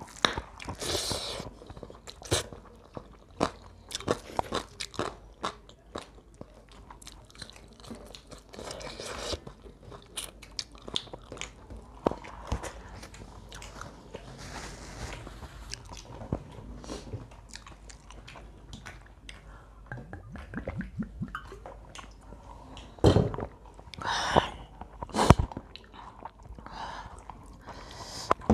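Close-miked eating: chewing and crunching of crisp-fried chicken and rice eaten by hand, with many small clicks and smacks. A few louder knocks come near the end.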